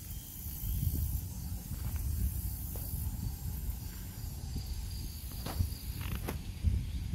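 Outdoor ambience on a walk: a low, uneven rumble under a steady high hiss, with a few sharp clicks a little over five and six seconds in.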